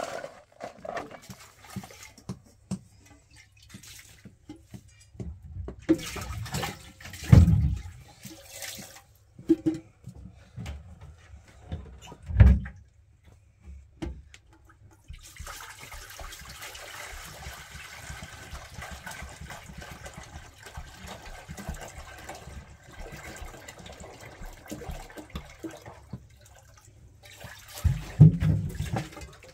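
Water poured from a plastic jerrycan into a metal cooking pot, a steady splashing pour lasting about ten seconds. Before it come a few heavy thuds and knocks of stones and a shovel landing in a metal wheelbarrow.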